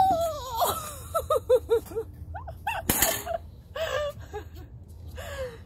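A person's high-pitched voice: a long gliding exclamation, then a quick run of short laughing syllables, with a sharp breathy burst about three seconds in and a few more short calls after.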